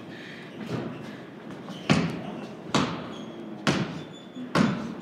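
A basketball being dribbled on a wooden plank floor: a faint bounce, then four hard bounces about one a second, each with a short echo from the large wooden room.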